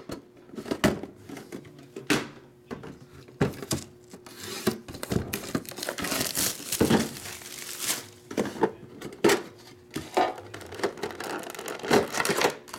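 Clear plastic wrapping crinkling as metal trading-card tins are handled, with scattered sharp clicks and knocks of the tin and its lid. The crinkling is densest in the middle.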